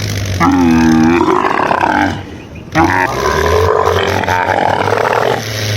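Two long, drawn-out cattle moos, one after the other, over a steady low hum.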